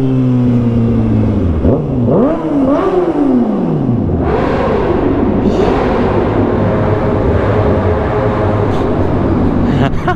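Kawasaki ZX-6R's inline-four engine accelerating, revving up through a couple of quick upshifts that each cut the pitch briefly, then running at speed. From about four seconds in, loud wind rush on the helmet-mounted microphone covers much of the engine.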